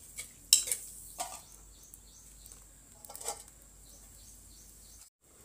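A few sharp metallic clinks of steel cookware: a ladle knocked against a steel kadhai and a steel lid set down on it. The loudest clink comes about half a second in, with briefly ringing ones after it.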